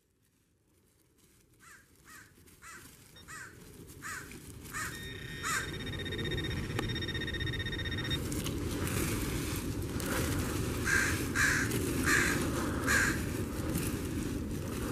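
A bird calling over and over, about three short calls a second early on and a louder run of calls a few seconds from the end, over a steady low rumble that swells up over the first few seconds. Midway, a handheld metal-detecting pinpointer sounds a steady tone for about three seconds as it is held over a target in wood-chip mulch.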